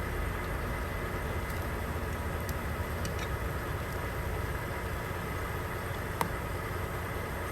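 Steady low engine rumble, like an idling engine, with a single sharp click about six seconds in.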